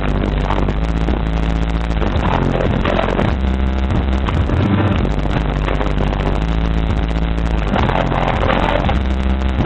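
Image Dynamics IDQ10.2 10-inch subwoofer in a ported enclosure tuned to 35 Hz, playing loud bass-heavy music. Deep bass notes step from one pitch to another every half second to a second.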